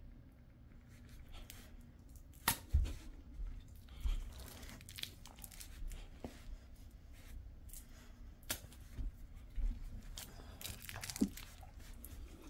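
Jindo dog gnawing and tugging at a plush eggplant toy: irregular rustling and tearing-like crackles of the fabric with sharp clicks, the loudest a few seconds in and again near the end.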